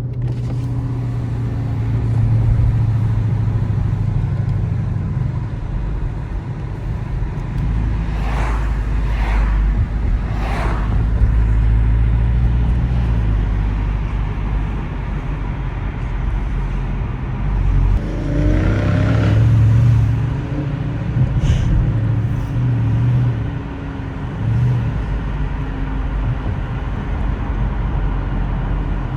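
Car engine running steadily while driving, with a short rise and fall in engine pitch about eighteen seconds in.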